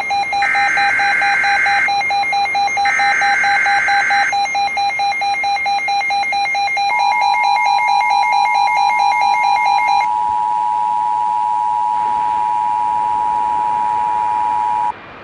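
Emergency Alert System alert tones. Two screeching data bursts come over a rapid electronic beeping, then about seven seconds in a steady attention tone starts and holds for about eight seconds. The beeping stops about ten seconds in.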